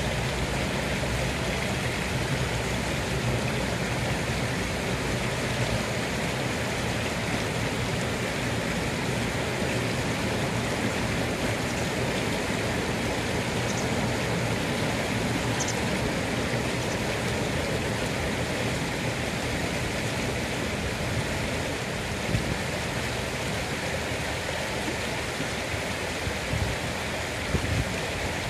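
Shallow river running over a gravelly bed: a steady, even sound of flowing, rippling water.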